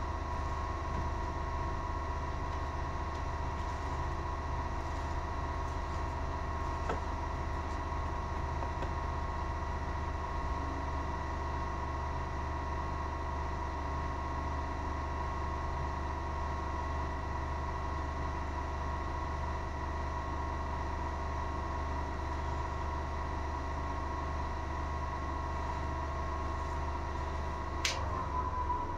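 Bait-mold centrifuge spinning an aluminium soft-plastic mold: a steady motor hum with a fixed whine. Near the end there is a sharp click as a hand touches the spinning mold, and the hum wavers.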